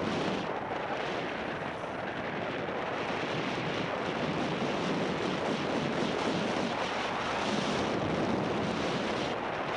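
Steady rushing noise of sliding down a groomed ski run: the hiss and scrape of the board or skis on packed snow, mixed with wind buffeting the microphone.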